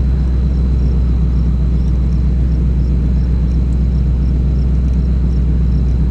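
Steady low rumble of a vehicle engine idling, even and unchanging throughout.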